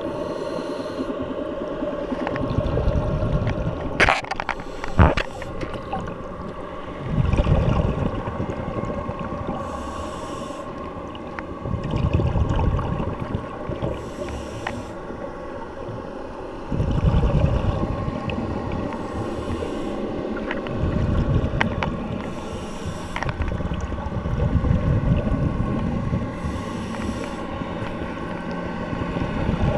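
Underwater sound of a scuba diver breathing through a regulator: a hiss on each inhale alternating with a rumble of exhaled bubbles, about one breath every four to five seconds. Two sharp knocks come about four and five seconds in, over a steady faint hum.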